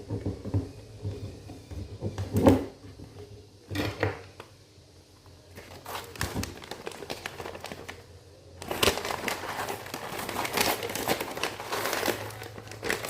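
Coffee beans and their packaging being handled: crinkling and crackling with a few sharp knocks, thickening into a dense crackle for about four seconds near the end.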